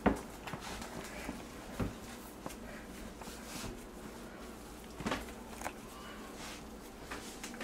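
Hands kneading pizza dough on a wooden cutting board: soft, irregular thumps as the dough is pressed and pushed against the board, a few of them louder.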